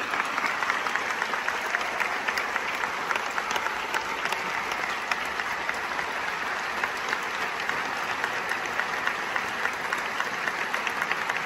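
Large theatre audience applauding steadily, many hands clapping at once.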